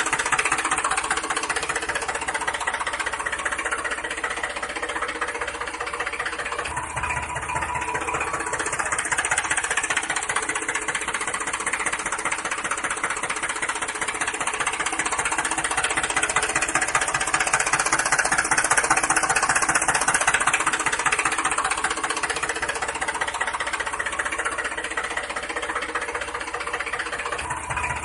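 An engine idling steadily with a rapid knocking clatter.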